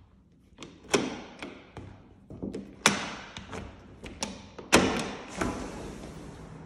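A run of knocks and thumps as a glass balcony door is handled and opened. About five and a half seconds in, a steady outdoor hiss comes in through the open door.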